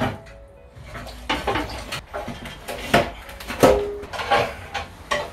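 Metal clanking and knocking as a car's radiator and front-end panel are worked loose and lifted off: several separate knocks, a few with a brief metallic ring.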